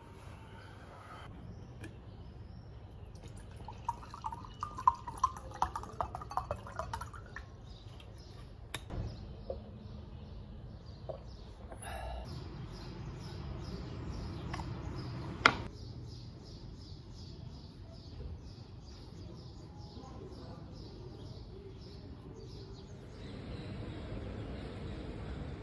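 Water poured into a drinking glass, gurgling irregularly for a few seconds, with a single sharp knock later.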